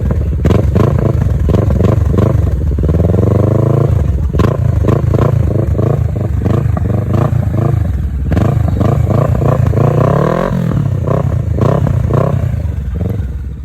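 Kawasaki Versys 650's parallel-twin engine running and being revved. The pitch climbs about three seconds in and again about ten seconds in, dropping back each time.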